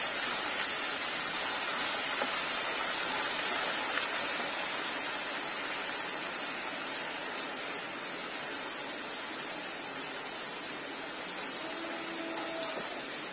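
Grated potato shreds deep-frying in hot oil: a dense, steady sizzle that eases off slightly as it goes on.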